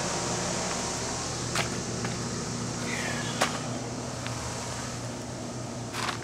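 Steady mechanical hum and whir of running machinery, slowly fading a little, with a few sharp clicks and a short falling squeak in the middle.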